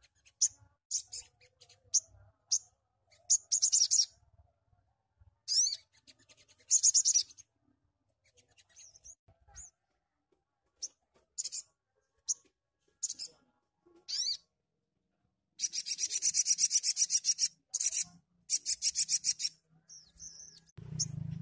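Male olive-backed sunbird calling: sharp high chirps broken by fast, buzzy rattling trills (its 'tembakan'), the longest lasting about two seconds. Near the end a low fluttering rustle as the bird flies off the perch.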